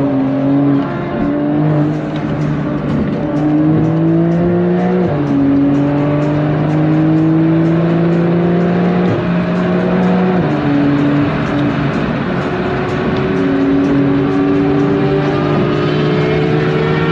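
Porsche 911 (992) flat-six engine heard from inside the cabin under hard acceleration at high speed. Its pitch climbs steadily and steps down at each upshift, several times, over loud wind and road noise.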